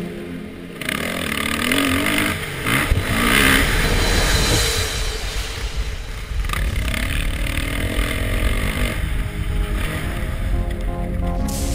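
Motocross bike engine revving up and down while riding, its pitch rising several times, over wind and track noise on a helmet-mounted camera.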